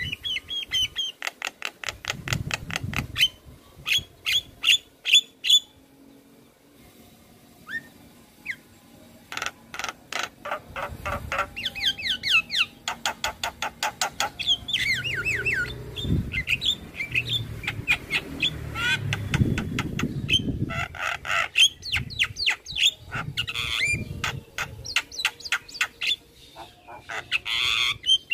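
Javan myna (jalak kebo) singing a varied song of rapid repeated notes, clicks and whistles, broken into phrases with a short lull about six seconds in, the mixed song said to be full of mimicked calls of other birds.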